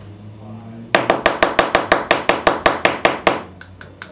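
Fly-tying hair stacker rapped repeatedly on the table, about fourteen quick, even knocks at roughly six a second starting about a second in, then a few lighter taps near the end: evening up the tips of a clump of deer hair for a wing.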